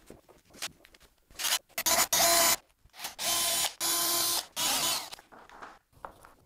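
Cordless drill-driver whirring in a run of short bursts with a steady motor whine, boring or driving a screw into chipboard.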